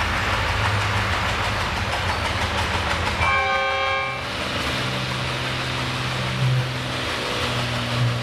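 Tractor engines running steadily, with a single horn blast lasting a little under a second about three seconds in.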